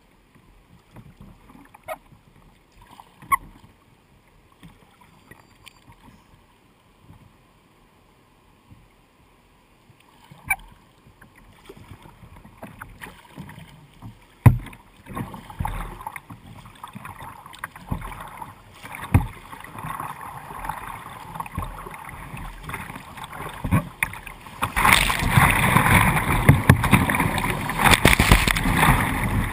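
Kayak on a river: quiet water at first with a few light knocks, then the rush of whitewater rapids building steadily. For the last few seconds it is loud, with water crashing and splashing over the bow-mounted camera as the kayak runs the rapid.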